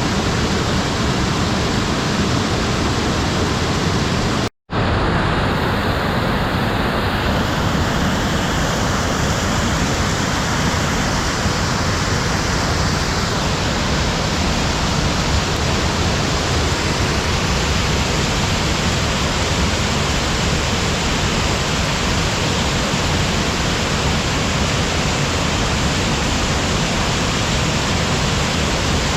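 Waterfall pouring: a loud, steady rush of falling water, cut off for a fraction of a second about four and a half seconds in.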